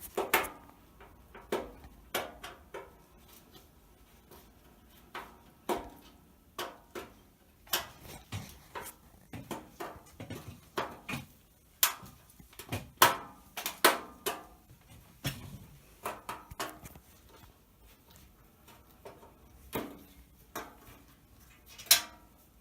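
Irregular metallic clinks and knocks, with the loudest about two thirds of the way through and again near the end, from a screwdriver and the sheet-metal exhaust vent pipe of a gas water heater as its screws are taken out.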